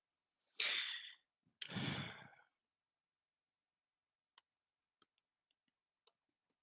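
Two breathy sighs close to a headset microphone, about a second apart, followed by a few faint scattered clicks.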